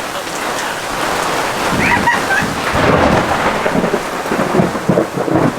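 Rain falling steadily, with a rolling rumble of thunder that swells from about two seconds in.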